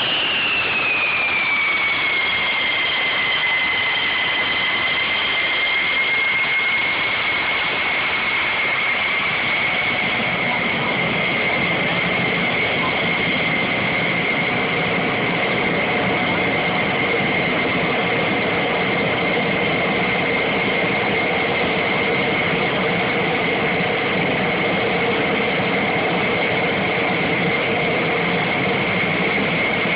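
F-16 fighter jet engines running at idle on the ramp: a steady high whine over a loud rushing hiss. The whine rises and falls back in pitch within the first couple of seconds, and a lower hum joins it about a third of the way through.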